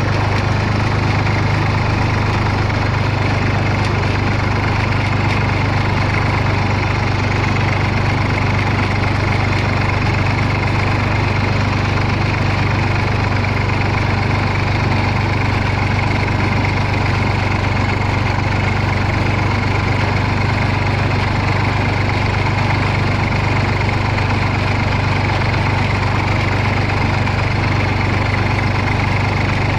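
IMT farm tractor's diesel engine running at a steady speed as the tractor drives along, heard from the driver's seat.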